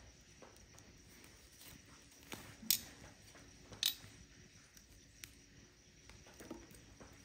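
Wood campfire burning, crackling faintly with scattered small ticks and two sharper pops, one a little under three seconds in and one about a second later.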